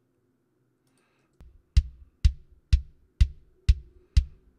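Raw, unprocessed acoustic kick drum tracks played soloed: a real kick hit on every beat at about two hits a second (the session's 125 BPM), each hit a sharp beater click over a punchy low thump. Faint bleed from the rest of the drum kit sits underneath. The hits start about a second and a half in.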